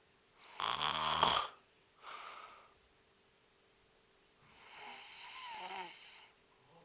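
An old man snoring heavily in a drunken sleep. A loud rattling snore comes about a second in, followed by a softer breath, and then a longer, wavering snore near the end.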